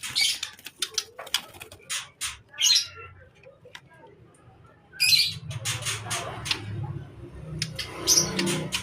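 White-rumped shama (murai batu) singing: rapid bursts of short, sharp notes and mimicked calls, with a quieter lull midway before the notes come thick again.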